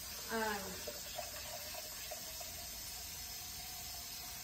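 Tap water running steadily into a container, with a faint steady tone under it from about a second in.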